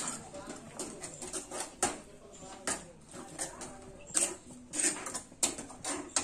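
Steel ladle stirring thick masala gravy in a metal kadai: irregular scrapes and clinks of the ladle against the pan.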